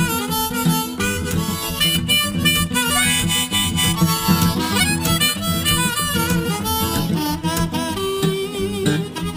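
Instrumental break of a blues-style song: a harmonica lead with bending notes over a guitar backing.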